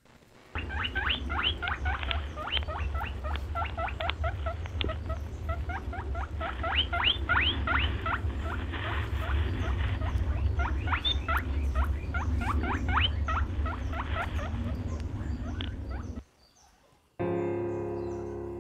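Guinea pigs squeaking in rapid, repeated rising calls (wheeking), several a second, over a steady low hum. The squeaks cut off about 16 seconds in, and music starts about a second later.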